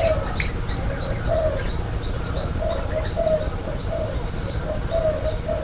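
Spotted dove (tekukur) cooing: a run of short, low, repeated coo notes. A brief high chirp cuts in about half a second in.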